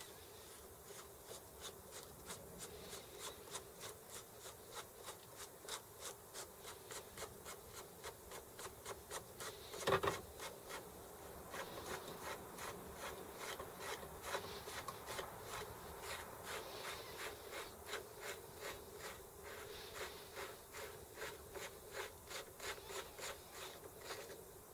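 Sturmey-Archer S5C Sprinter hub's internal parts clicking and rubbing as they are turned by hand on the axle, about two or three clicks a second, with one louder knock about ten seconds in.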